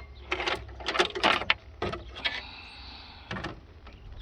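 A string of sharp metallic clicks and knocks from engine parts being handled, with a brief high whine about two seconds in.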